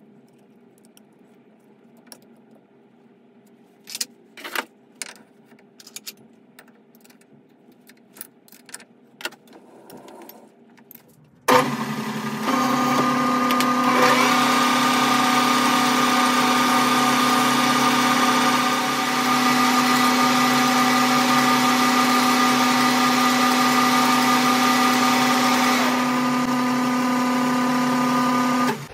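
Clicks of a chuck key and metal handling as a small steel part is clamped in a metal lathe's three-jaw chuck. About eleven seconds in, the lathe starts suddenly and runs with a steady whine while a light facing skim is taken off the part, then stops.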